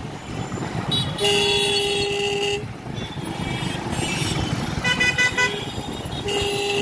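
Vehicle horns honking in busy street traffic. A long steady blast comes about a second in and another near the end, with a quick run of short toots from a different horn around five seconds. Under them is the rumble of a two-wheeler engine and passing traffic.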